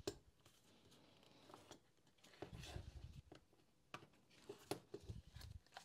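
Faint handling noise: a few soft plastic clicks and knocks as the two halves of a Makita cordless heat gun's housing are fitted and pressed together.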